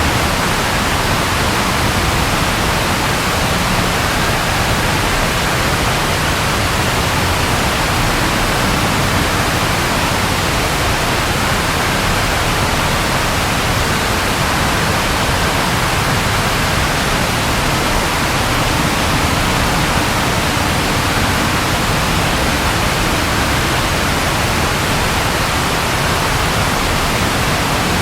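Steady, even rain falling as a continuous hiss, with no thunder in this stretch.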